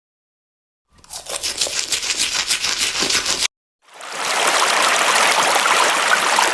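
Hard-cut sound clips between stretches of dead silence: a scratchy, fast, rhythmic scrubbing noise for a couple of seconds, then, after a short cut, a steady hiss of rushing noise.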